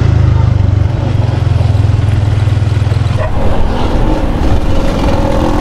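Yamaha Sniper 150 motorcycle's single-cylinder four-stroke engine running while riding, heard together with road and wind noise. The sound changes about three seconds in, as the low steady drone gives way to a higher hum.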